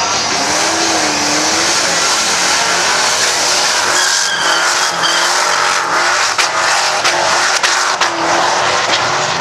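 Sedan doing a burnout: its engine held at high revs while the rear tyres spin and squeal against the track.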